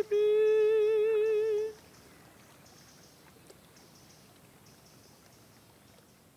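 A woman's voice holding a long, high sung note with vibrato, the close of an unaccompanied Bavarian song. It breaks off briefly at the start, then stops about two seconds in, leaving only faint room hiss.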